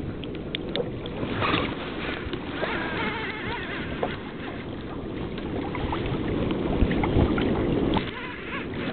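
Water sloshing and lapping against a kayak hull, with wind on the microphone; the sloshing grows louder near the end.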